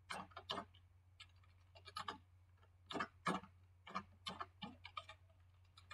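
Computer keyboard typing: faint, irregular clusters of keystroke clicks over a steady low hum.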